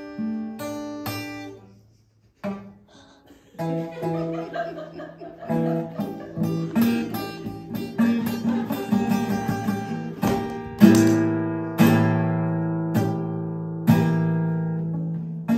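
Acoustic guitar played live: single picked notes, a brief pause about two seconds in, then fuller chords with a few hard strums in the second half.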